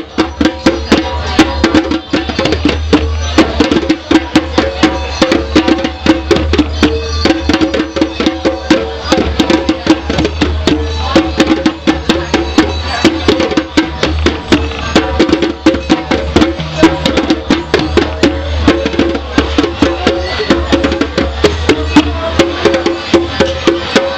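Several rope-tuned djembes played together with bare hands: a busy, steady rhythm of many strikes a second, deep bass tones under sharper ringing hits.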